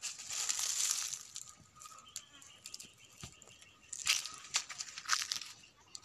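Dry leaves and branches rustling and crackling in bursts, with scattered snaps and clicks in between.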